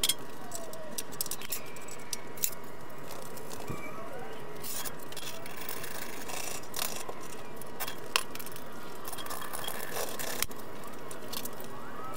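Sped-up workshop audio from a time-lapse teardown of a lawn mower: steady hiss with rapid scattered clicks and rattles of tools and parts, and short squeaky chirps.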